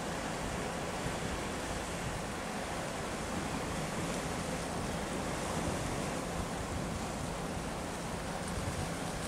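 Steady surf and wind noise, with a small boat's outboard motor humming faintly underneath.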